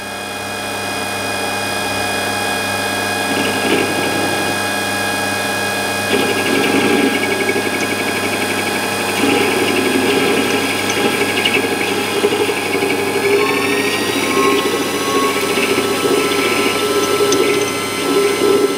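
Warco WM180 mini lathe running with a steady, many-toned whine from its motor and drive while facing off the end of a 12L14 steel bar. A rougher cutting sound joins in about six seconds in, and one tone of the whine rises in pitch about two-thirds of the way through.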